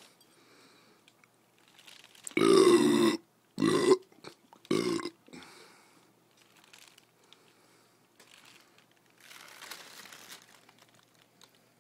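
A loud burp about two and a half seconds in, followed by two shorter, similar burps, over faint scuffling and licking as the ferrets lap at the beer bottles.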